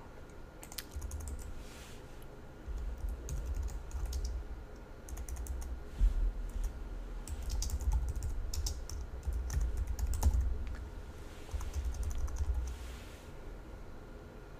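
Typing on a computer keyboard in several short runs of keystrokes, each press a click with a low thud beneath it; the typing stops near the end.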